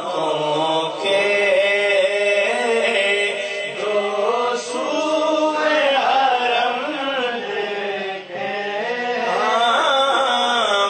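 A man singing a naat unaccompanied, in a slow, melismatic chant with long, ornamented notes. There is a brief break about eight seconds in.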